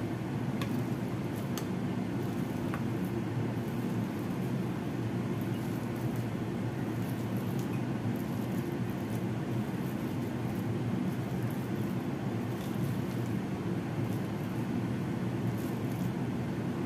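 Steady low machine hum, with a few light clicks in the first three seconds from a metal potato masher mashing steamed pumpkin in a bowl.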